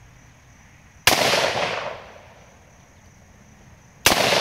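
Two shots from a Ruger Security-Six revolver firing .357 Magnum jacketed hollow points, about three seconds apart, each followed by a long echoing tail.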